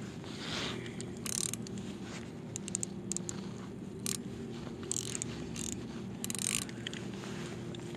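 Spinning reel ratcheting and buzzing in short, irregular bursts as it is worked by hand, its drag set loose for a live-bait rig. A steady low hum runs underneath.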